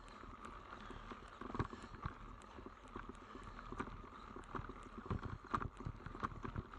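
Mountain bike rattling over a rough, technical forest trail: irregular knocks and clicks from the bike jolting over roots and stones, over a steady rolling hiss.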